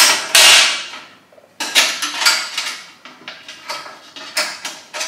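Metal wire grill plate of a portable charcoal barbecue clattering and clinking as it is set onto the bowl. The loudest clatter comes about half a second in, followed by a few knocks and then a run of smaller clicks as it is pressed down into place.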